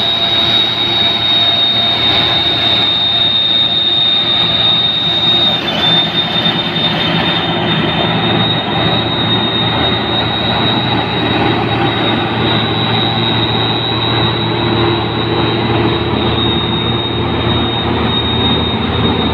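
New Holland 8060 combine harvester running and moving on its tracks, its engine and machinery making a loud steady din with a constant high-pitched whine over it.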